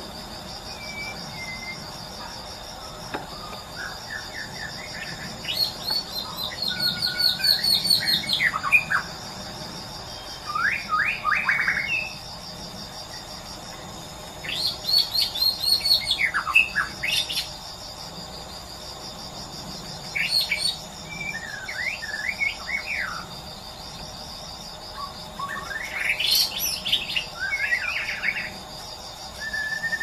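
White-rumped shama (murai batu) singing in the wild: about five bursts of varied, rich whistles and fast trills with short pauses between them. A steady pulsing insect chorus runs underneath.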